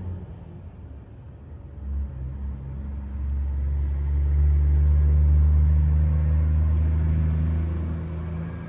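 Low, steady engine hum. It drops away about a second in, then builds back up from about three seconds and is loudest around the middle.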